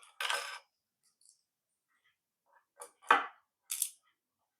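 Plastic parts of a toy car being handled and pulled apart: a short rustle, then a few sharp plastic clicks and knocks about three seconds in.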